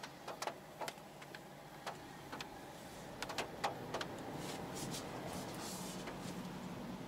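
Cabin noise of a BMW 118i with its 1.5-litre engine in slow traffic: a scatter of irregular light clicks and taps over the first few seconds, then a steady engine hum and road noise that swell from about four seconds in as the car moves off.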